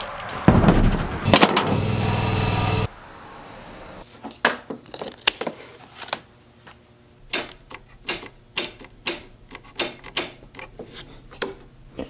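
A loud, steady mechanical whir starts about half a second in and cuts off abruptly about two and a half seconds later. It is followed by a run of sharp metallic clicks and knocks as jumper-cable clamps are fitted to a car battery's terminals.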